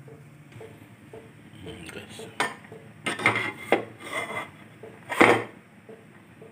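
Stainless steel cookware clattering: a run of sharp metal knocks and clinks from a pot, lid and utensils on a gas stove, the loudest about five seconds in.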